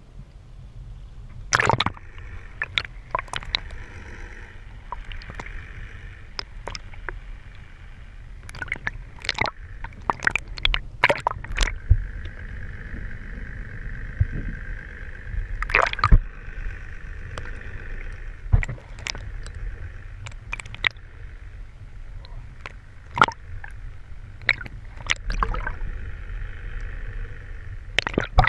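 Water sloshing and gurgling around a camera held underwater, heard muffled through its waterproof housing, with a steady low rumble and faint hum. Irregular sharp clicks and knocks sound throughout, the loudest about 2, 11 and 16 seconds in.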